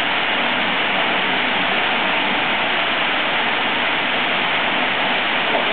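A steady, even rushing hiss with no speech.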